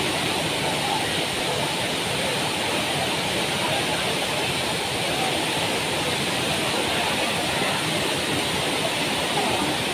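Floodwater rushing over rocks in a swollen mountain stream: a steady, loud roar of churning white water.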